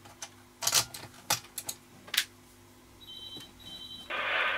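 A run of sharp plastic clicks and knocks from handling the CB radio gear on the bench, then two short high beeps. About four seconds in, the Eurosonic ES200 CB handheld's speaker opens into loud, hissy receive audio as an incoming transmission begins.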